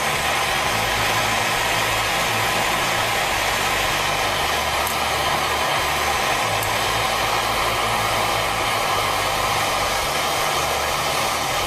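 Gas soldering torch flame hissing steadily on a large copper fitting. The joint has reached the heat where the solder is starting to melt and flow.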